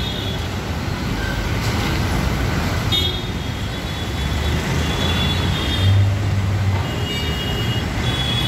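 Steady road traffic: a continuous rumble of auto-rickshaw, car and motorbike engines and tyres, swelling briefly about six seconds in. Several short, thin, high squealing tones sound over it.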